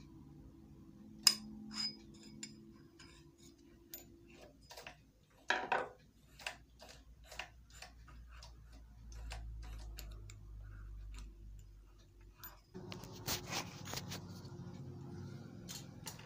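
Small metal clicks, taps and scrapes of hand tools on a sewing machine's handwheel as its retaining bolt is tightened. A sharp click comes about a second in, then a string of evenly spaced ticks, and near the end a steadier scraping, rustling noise.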